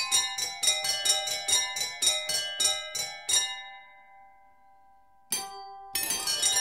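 Wine glasses struck by hammers in a homemade glass keyboard instrument, playing a melody in a quick run of ringing notes, about four or five a second. The run stops about three and a half seconds in and the glasses ring away; after a short pause a new run of notes starts near the end.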